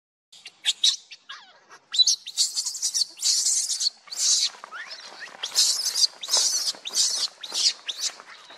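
Baby macaque giving a rapid series of shrill, high-pitched squealing cries, some sliding down in pitch.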